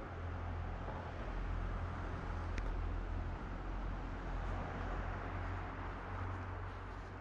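Outdoor ambience: a steady low rumble that swells slightly over the first few seconds, with one short high chirp about two and a half seconds in.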